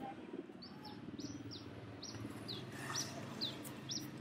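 A small bird chirping repeatedly: short high chirps, each falling in pitch, about two a second, starting about half a second in.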